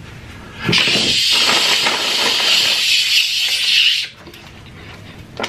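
A man's loud, breathy, hissing laugh with almost no voice in it, starting under a second in and lasting about three seconds before it cuts off. A short knock follows near the end.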